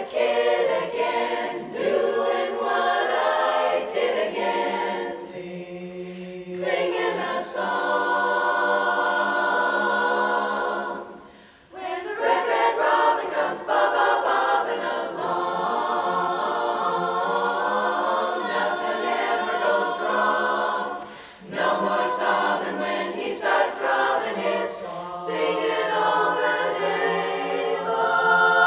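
Women's chorus singing a cappella in close harmony, with sustained chords. The singing breaks off briefly twice, about eleven seconds in and again about twenty-one seconds in.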